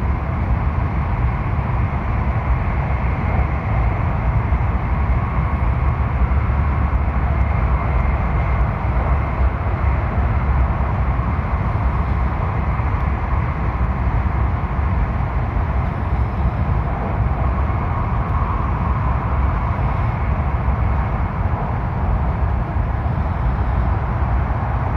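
Steady low rumble and hiss of a Hayabusa shinkansen running at speed, heard from inside the passenger cabin.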